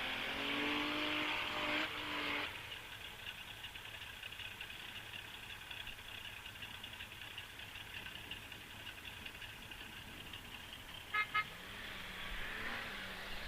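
A distant off-road 4x4's engine revving up with rising pitch for the first couple of seconds, then fading into a quieter engine drone; two short horn toots about eleven seconds in, and the engine pitch climbing again near the end.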